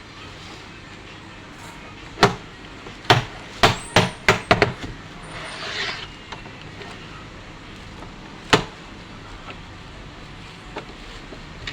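Sharp clicks and knocks from handling the plastic case and parts of an all-in-one computer during disassembly. Most come in a quick cluster partway through, with a short scrape just after them. A steady background hum runs underneath.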